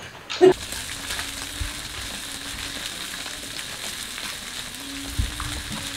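A short knock about half a second in, then steady sizzling of food grilling over a charcoal brazier.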